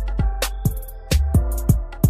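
Background music with a steady drum-machine beat, deep bass and a sustained melody.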